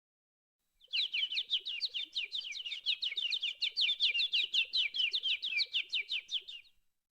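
A bird's rapid, even trill: a long run of short, high, falling chirps at about six a second, lasting nearly six seconds and stopping suddenly.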